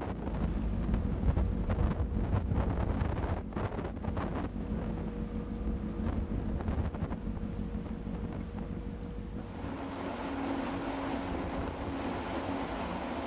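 Wind buffeting the microphone over a deep low rumble from a large car ferry pushing through sea ice. About ten seconds in this gives way to a steadier rushing hiss with a faint low hum.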